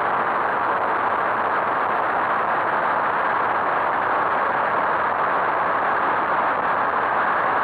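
Skyteam Monkey 125 cc motorcycle riding at a steady speed: an even rush of wind on the microphone and engine noise, holding one level with no clear engine note or changes.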